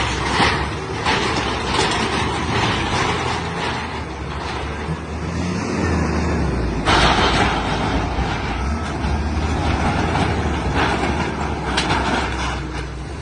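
Heavy machinery engine running with a steady low rumble, with louder bursts of noise about halfway through and again near the end.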